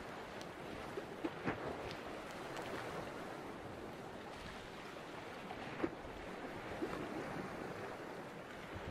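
Choppy harbour sea washing and lapping, a steady rushing noise broken by a few short knocks, the sharpest about six seconds in.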